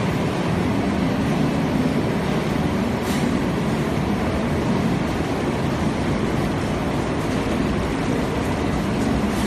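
Steady din of a running frozen french fries processing line: electric motors, conveyors and washing water, with a faint steady hum and a brief hiss about three seconds in.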